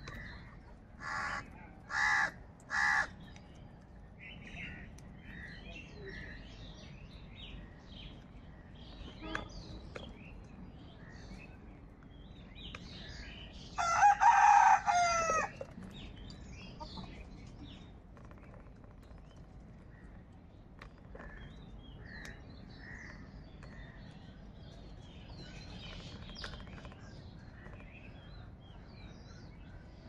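House crows cawing: three short, harsh caws in quick succession near the start, then a longer, louder drawn-out call with a falling end about halfway through. Faint small-bird chirping runs in between.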